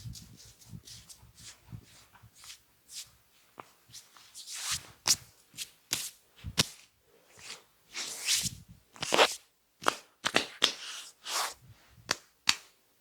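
Hands working over a head and neck in an oil massage: an irregular series of sharp slaps and cracks mixed with longer brushing rubs, the loudest strokes coming in the second half.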